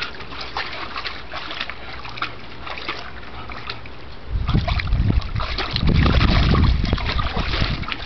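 Bulldog wading in a plastic kiddie pool, the water sloshing and splashing around its legs. A low rumble on the microphone comes in about four seconds in and again around six seconds, louder than the splashing.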